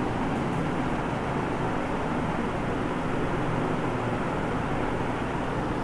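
Steady background noise with a low hum underneath, even throughout, with no distinct events standing out.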